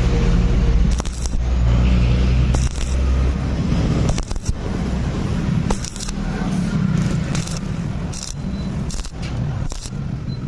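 Stick (MMA) welding arc crackling and sizzling, with frequent irregular sharp pops over a steady low hum.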